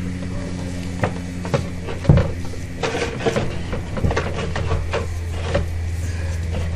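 Sewer inspection camera push rod being fed into the line, with irregular clicks and knocks over a steady electrical hum.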